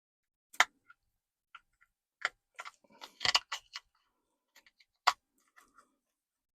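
Screwdriver prying at the plastic case of a Land Rover Freelander 2 remote key: a series of sharp, irregular clicks, about ten in all, with a quick cluster about three seconds in and another single click about five seconds in.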